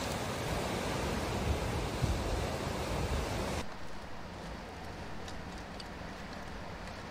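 Steady rushing noise of sea surf and wind. A little over three seconds in it cuts off abruptly to a much quieter background with a few faint ticks.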